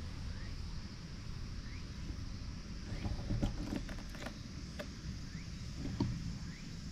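Outdoor ambience: a steady low rumble and a high steady hiss, with a short rising chirp repeating about once a second. A cluster of light clicks and knocks comes near the middle, and one more near the end.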